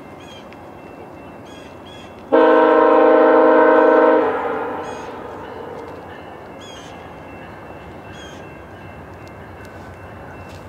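Passenger train's multi-tone air horn sounding one long blast of about two seconds, a little over two seconds in. Its echo dies away over the next two seconds.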